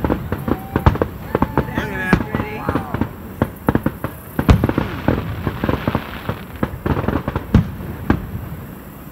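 Fireworks going off: a rapid, irregular series of sharp bangs and crackles, with the loudest bang about four and a half seconds in.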